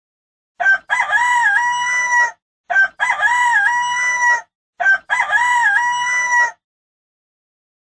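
Rooster crowing three times in a row, each cock-a-doodle-doo about two seconds long. The three crows are identical, a single crow repeated, with dead silence between them.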